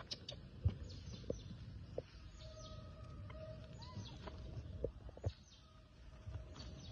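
Faint animal chirps and calls in the background, with a thin steady tone through the middle and scattered light clicks and taps.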